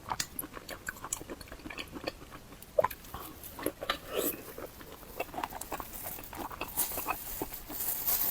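Chewing and mouth sounds of someone eating, close to the microphone: a quick run of small wet clicks and smacks.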